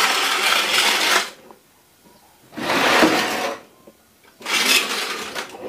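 A CRT television set dragged and turned across the floor: three scraping pushes of about a second each, with pauses between.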